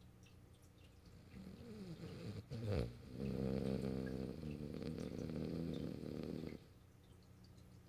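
French bulldog snoring in its sleep: a breath that builds, a sharp snort, then one long pitched snore of about three and a half seconds that cuts off suddenly.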